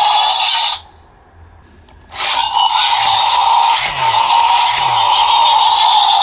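Electronic sound effect from a Super Sentai DX morpher toy's built-in speaker: a loud, harsh, buzzing loop that cuts out for about a second near the start and then starts again.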